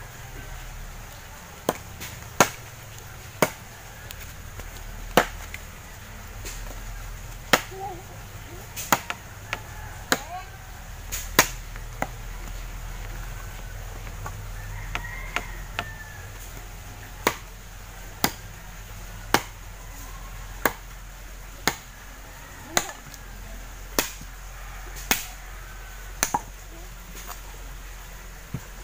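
Machete blade chopping into sticks of dry firewood, sharp single chops about one a second, with a pause of about five seconds midway.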